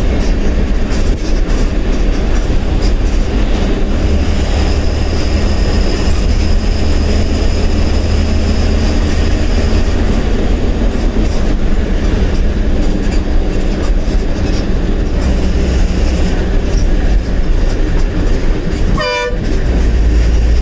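Diesel bus engine and road noise heard from inside the driver's cabin on the move: a steady low drone with rattling of the cabin. A short horn blast sounds near the end.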